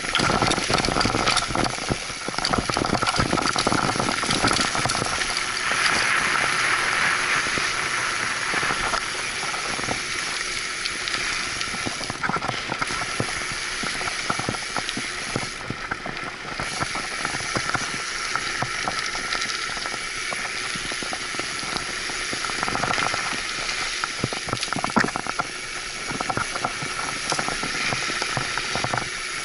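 Mountain bike rolling along a paved trail: a steady rushing of tyre and wind noise, with many quick clicks and rattles from the bike over bumps.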